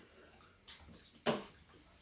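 Two short, faint clicks of metal eating utensils against dishes, the second louder, in a quiet room.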